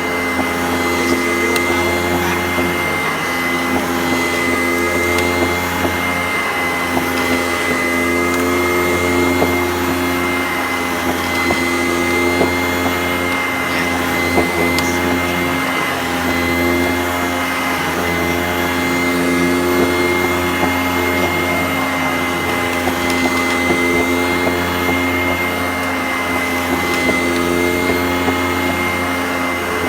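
Sanitaire SC886 upright vacuum cleaner running steadily over carpet, its motor giving a constant high whine.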